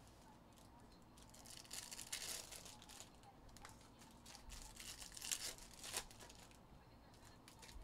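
Foil wrapper of a Topps Chrome Jumbo trading-card pack being crinkled and torn open by hand, starting about two seconds in, with a couple of sharper rips around five and six seconds.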